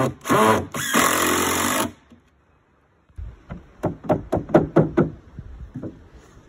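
Cordless drill running in short bursts, then one longer run as it drives a screw into a floorboard. After a pause, a quick run of a dozen or so wooden knocks as a block is knocked against a board edge to seat the tongue-and-groove floorboards tight.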